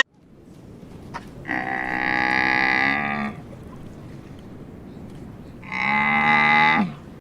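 A cow mooing: two long, steady moos a few seconds apart.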